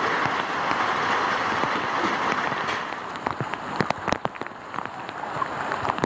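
Heavy monsoon rain falling on standing floodwater, a steady hiss. After about three seconds the hiss thins and gives way to a patter of separate, sharper drops and splashes.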